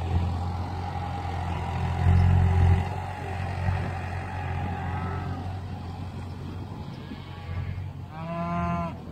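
Beef cow mooing, one long call near the end, with a fainter, higher call about halfway through: cows calling for their calves. Under it a tractor engine runs steadily, with a brief louder low rumble about two seconds in.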